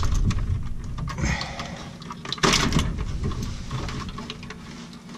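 Wiring and plastic plug connectors being handled and pulled off a furnace control board: scattered clicks and rustling, with one louder knock about two and a half seconds in.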